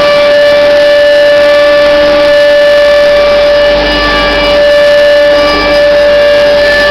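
Pipe-elbow bending machine running with a loud, steady whine on one high pitch, over a constant mechanical hiss.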